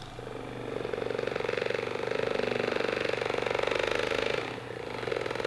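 RecoverFun T5 massage gun running at its first speed: a steady motor buzz with very fast, even percussion strokes. It builds up during the first second, drops off briefly about four and a half seconds in, then picks up again.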